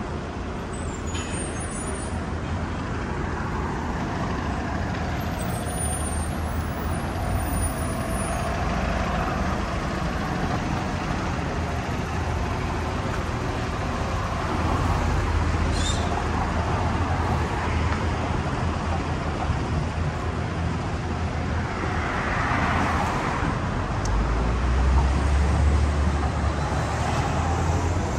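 City street traffic: cars and heavier vehicles driving past with a steady low engine rumble, which grows louder near the end as a large vehicle passes. A brief high squeak about halfway through.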